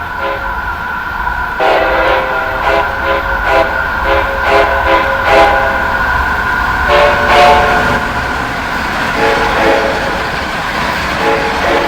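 Amtrak locomotive horn playing a horn show: a quick run of about nine short chord blasts, then several longer blasts, over the low rumble of the train and a steady high whine.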